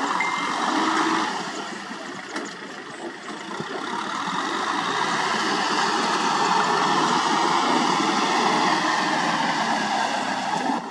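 Kubota M6040 SU tractor's diesel engine running under load as it pulls a rotary tiller through wet paddy mud. The sound dips for a couple of seconds about two seconds in, then rises again and holds steady.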